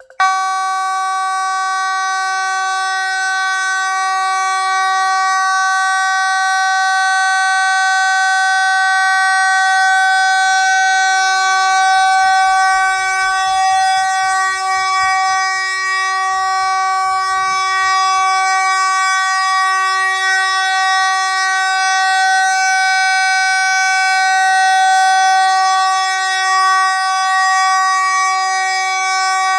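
Space Age AV32-2DCD electromechanical fire alarm horn sounding continuously, switching on abruptly and holding one steady tone rich in overtones.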